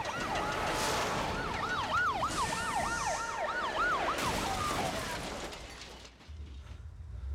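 Several police car sirens wail over one another, their pitch rising and falling quickly, with traffic noise underneath. The sirens fade out about five seconds in, leaving a low rumble.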